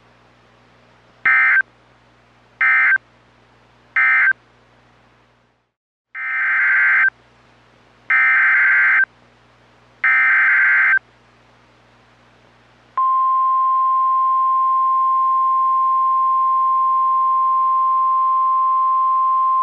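Emergency Alert System SAME data tones: three short warbling end-of-message bursts, a brief pause, then three longer header bursts about a second each. After about thirteen seconds the NOAA Weather Radio 1050 Hz warning alarm tone starts, a single steady pitch, signalling that a new warning follows.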